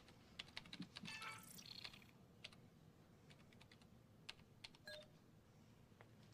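Faint, irregular key clicks on an editing console's keyboard, with a brief noisy burst about a second in.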